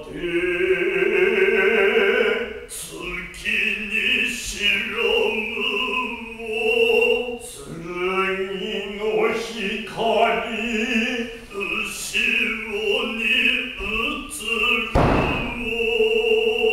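A man's voice chanting Noh utai in long, held, wavering tones. One heavy thump near the end.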